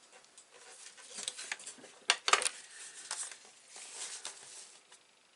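Paper and a scoring board being handled on a craft table: light rustles and small clicks and taps, with a sharper pair of knocks a little after two seconds in.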